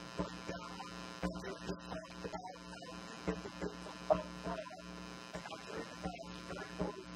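Steady electrical mains hum and buzz with many overtones, with faint, muffled voice-like sounds beneath it.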